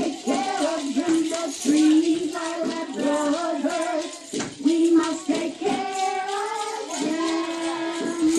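A group of young children singing a song together in a small room, with small hand-held jingle bells shaking along.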